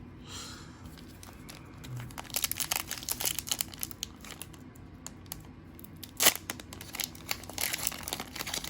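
A trading-card pack wrapper crinkling as it is handled and torn open, with one sharp, loud rip about six seconds in.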